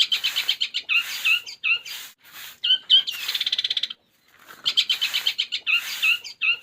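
Long-tailed shrike (cendet) singing a mimicry song: fast rattling trills and sharp chirps in the style of Eurasian tree sparrow calls, in repeated phrases broken by short pauses about two and four seconds in.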